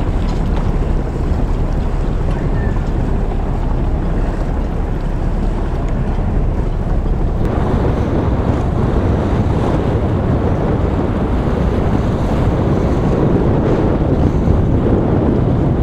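Wind buffeting the microphone over a steady wash of open water. About halfway in the water noise grows louder and fuller.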